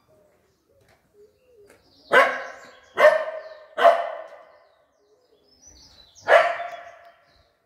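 A dog barking four times: three loud barks about a second apart, then one more after a pause of a couple of seconds.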